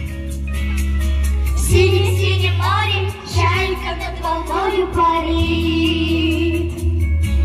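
A children's vocal group singing a pop song with microphones over a backing track with a steady bass and an even beat; the voices come in about two seconds in.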